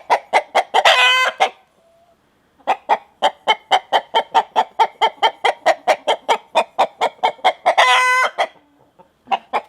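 Rooster cackling: quick clucks about five a second, each run ending in a long drawn-out squawk, twice (about a second in and again near the end), with a short pause after the first.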